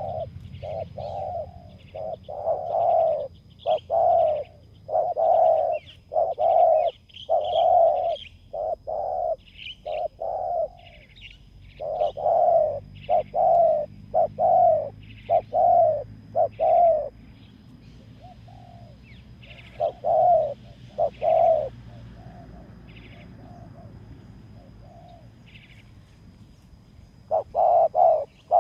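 Spotted doves cooing: runs of low, rhythmic coo phrases, thinning out to a few scattered coos in the second half before picking up again at the end. Small birds chirp faintly over them.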